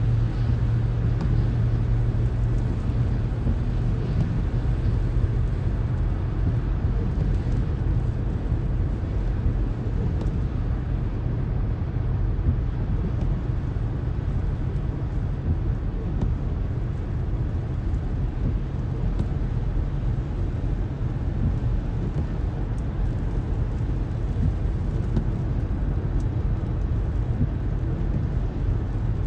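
A car being driven, its steady low road and engine rumble heard from inside the cabin.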